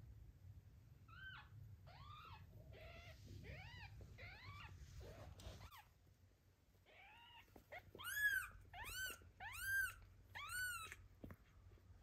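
A tiny kitten mewing over and over in short, high cries that rise and fall in pitch. The cries are fainter at first and grow louder over the last few seconds.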